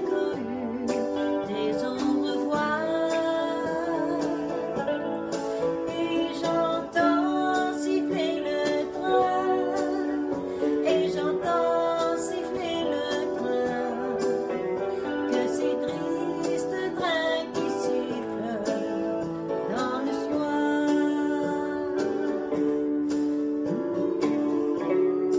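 Women singing a slow French ballad over a guitar-led backing track.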